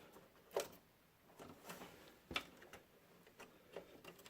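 A few faint, scattered clicks and taps of hands handling hard plastic and metal parts inside an open desktop PC case, the sharpest about two and a half seconds in.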